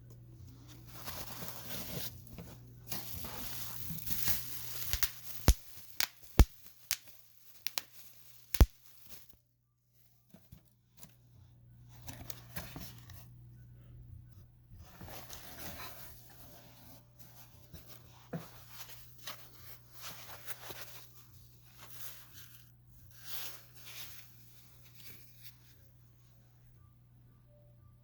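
Packaging being torn open and crinkled by hand, with a handful of sharp clicks or taps about five to eight seconds in.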